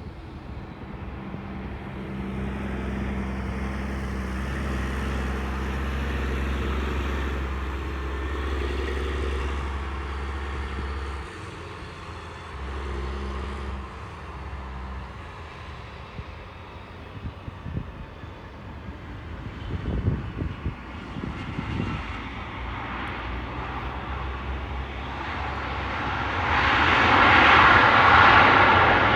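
Aircraft engine noise from a plane on the runway, with a low steady hum that stops suddenly about eleven seconds in, then a louder rushing engine noise swelling near the end as an aircraft passes close.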